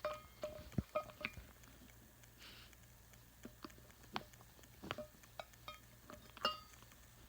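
Cockatoo busy in its hideout, chewing and pulling at material with its beak, making faint, scattered clicks and taps at irregular times, a few with a short ringing tone.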